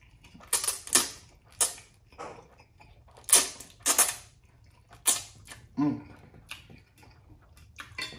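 Close-miked slurping and mouth smacks of a person eating spicy instant ramen noodles: about eight sharp, wet slurps in quick succession, with a short hum from the eater about six seconds in.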